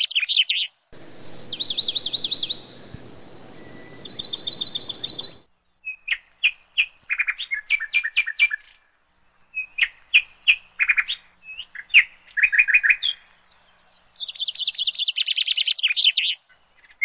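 Small songbirds chirping and singing in rapid high trills and short repeated phrases, with short gaps between bouts. A steady faint hiss sits behind the song from about one to five seconds in.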